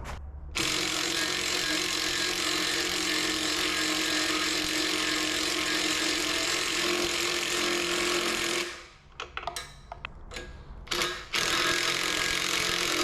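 A power tool grinding or sanding a workpiece, running steadily with a constant whine. A little before two-thirds of the way through it breaks off into a few short, uneven bursts, then resumes steadily.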